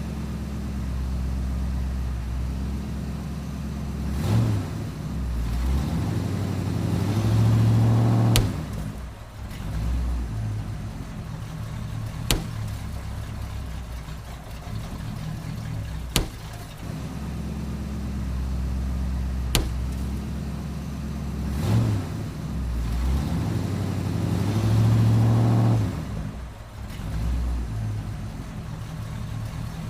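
Car engine running low and revving up twice, with four sharp single pops spread through the middle as balloons burst under the tyres.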